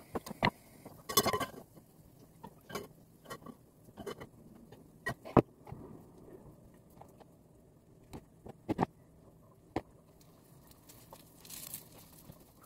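Scattered clicks and knocks of kitchen utensils while cooking: a spatula tapping and scraping a frying pan on a gas stove and things set down on the counter, with louder clatters about a second in and again around the middle.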